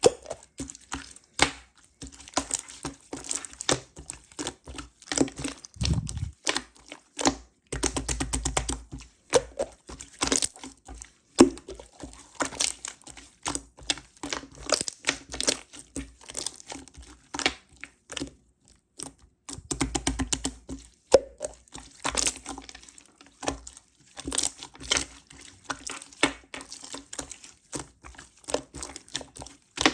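Clear slime with toppings being squeezed and stretched by hand, making a fast run of sticky clicks and crackles, with a few dull thumps.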